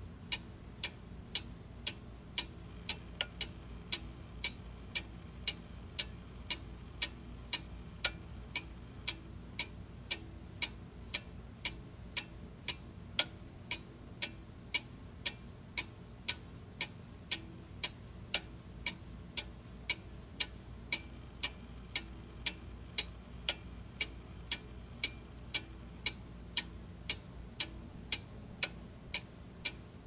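A clockwork mechanism ticking steadily and evenly, about two ticks a second, over a faint low hum.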